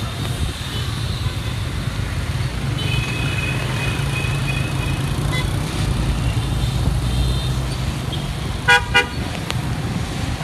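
Steady low rumble of wind and road noise on a moving motorbike in traffic, with a faint horn a few seconds in and two short, sharp vehicle-horn beeps near the end, the loudest sounds.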